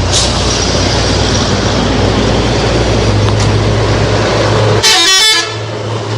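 A bus running with a loud, steady rumble, and about five seconds in a brief blast of a telolet musical bus horn lasting about half a second.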